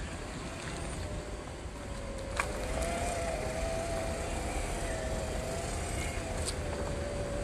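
Small electric motor and gearbox of a 1/12-scale WPL C24 RC crawler whining as it creeps along, the pitch wavering gently up and down. A short click about two and a half seconds in.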